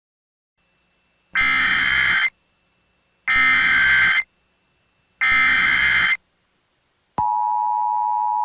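Emergency Alert System SAME header: three one-second bursts of warbling digital data tone. About seven seconds in, the steady two-tone EAS attention signal begins.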